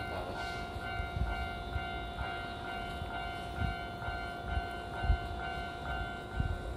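Electric commuter train standing at a station platform with its doors open: a steady electrical whine in two tones, the higher one pulsing at a regular beat. There are a few low thumps, the loudest about five seconds in.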